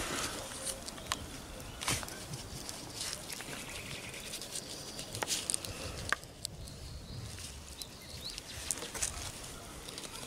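Close handling sounds of a ballpoint pen writing a log entry on a slip of paper: faint scratching with a handful of separate small clicks and taps, over quiet outdoor background.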